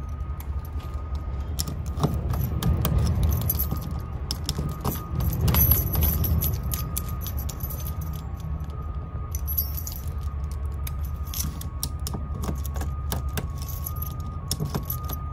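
A ring of GM 10-cut try-out keys jangling and clicking as keys are flipped through, pushed into a car door lock and turned back and forth, over a steady low rumble.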